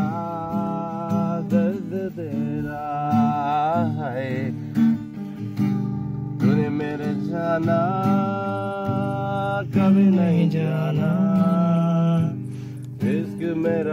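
Acoustic guitar music with a melody carried in long, wavering held notes.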